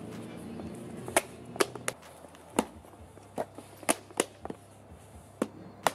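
Rugged smartphone dropped onto concrete steps, hitting and clattering down them in a series of about ten sharp, irregular knocks.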